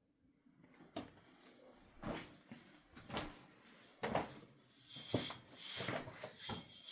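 Footsteps on rough, stony ground, about one step a second, with a steady high-pitched note near the end.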